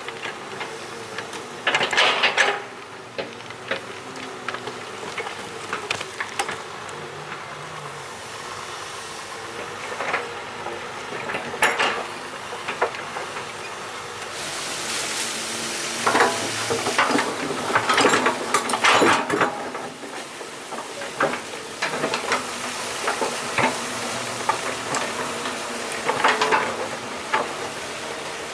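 Clinking and scraping knocks of utensils on cookware, with a steady sizzling hiss that starts about halfway through.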